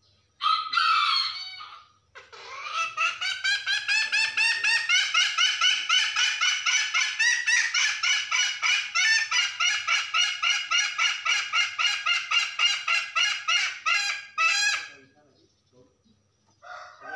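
Hen's long, rapid "ngekek" call to a rooster: a short call just after the start, then about twelve seconds of quick repeated notes, around three to four a second, rising in pitch at first and stopping about fifteen seconds in. Another short call comes near the end.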